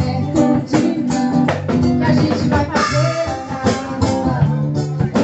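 A band playing music with guitar and drums, with regular drum hits.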